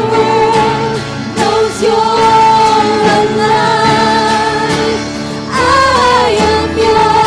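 Congregational worship song: voices singing long held notes over a steady instrumental accompaniment.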